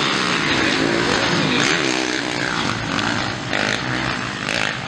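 Motocross bike engines revving hard as two bikes ride a dirt-track corner close together, their pitch rising and falling with the throttle.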